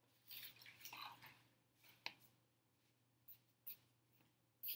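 Faint handling sounds of paper and scissors on a table: a soft rustle in the first second or so, then a sharp click about two seconds in and a few lighter ticks, over a faint steady low hum.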